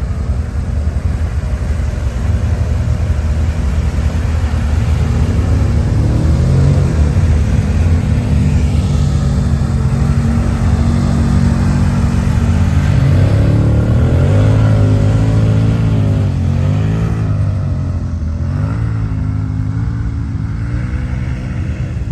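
ATV (quad bike) engine running loudly, its revs rising and falling repeatedly in the second half as it is worked.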